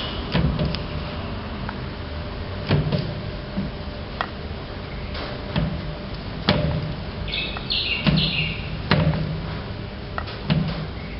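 Hand push broach on a drill press cutting a keyway, stroke by stroke: irregular clicks and knocks as the quill lever is worked and the cutter is advanced by hand, each often followed by a short low rumble.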